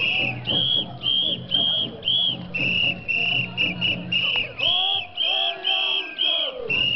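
Whistles blown in a steady marching rhythm, about two short shrill blasts a second, over the murmur of a parading crowd.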